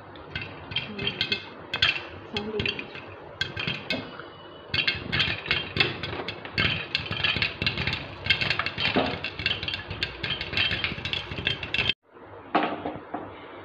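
Popcorn kernels popping in a covered metal pressure cooker on a gas stove: a dense, rapid crackle of pops, with the popping in full swing. It cuts off suddenly about twelve seconds in.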